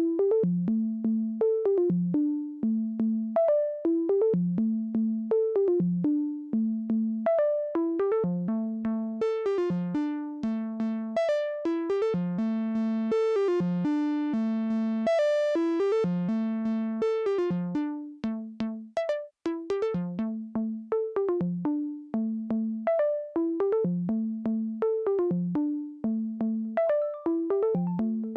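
Behringer SY-1 Syncussion analog drum synthesizer playing a looping sequence of short pitched electronic drum hits, dry with no effects. Some hits glide in pitch, and a low tom-like tone recurs throughout. The middle of the run turns brighter and buzzier, then the pattern thins briefly just before two-thirds of the way through and picks up again.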